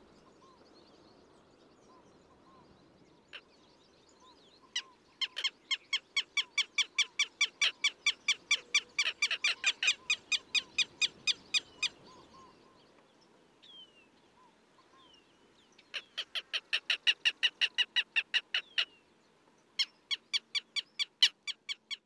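Southern lapwing calling its alarm call, a rapid run of sharp repeated notes at about five a second. It comes in three bouts: a long one starting about five seconds in, another about sixteen seconds in, and a short one near the end.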